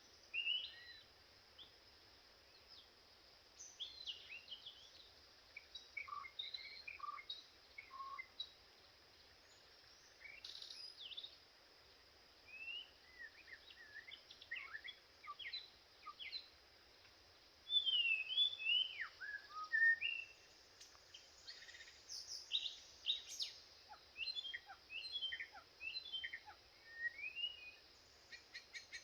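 White-rumped shama singing: a varied run of clear whistled phrases, short notes and sliding whistles, in bursts with short pauses, louder in the last third. A steady high hiss runs behind it.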